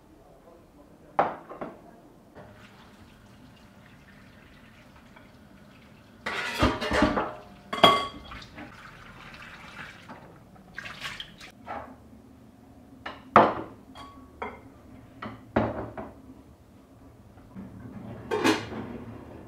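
Kitchen handling sounds: dishes, a plate and a pot clinking and knocking, now and then, with a short spell of running water at a stainless steel sink as vegetables are rinsed.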